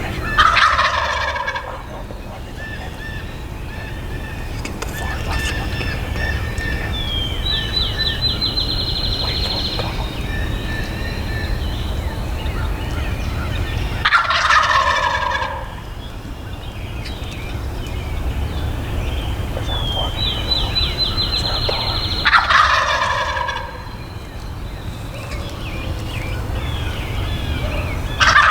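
Wild turkey gobbler gobbling four times, several seconds apart, each gobble a short loud rattling call. A high, rapid trill sounds twice between the gobbles over a steady low rumble.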